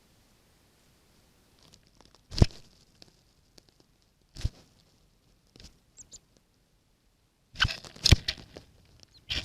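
Birds feeding at a snowy feeder, picked up by a trail camera's built-in microphone: scattered sharp pecks and crunches, one about two seconds in and another at four, then a quick run of them near the end. A couple of faint, very short high squeaks come around the middle.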